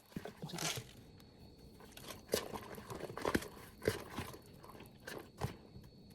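A few separate light knocks and clicks, as of utensils and dishes being handled while mixing batter.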